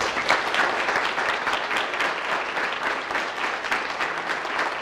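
Audience applauding: dense clapping from many hands that starts just before and holds at an even level.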